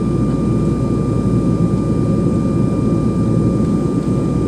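Steady cabin noise of an airliner in flight: a constant low rumble of engines and airflow with a thin steady whine on top.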